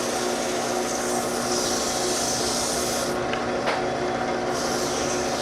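Scotch-Brite pad scrubbing carbon off an engine valve as the valve spins, over a steady motor hum. The scratching eases for about a second past the middle, then picks up again.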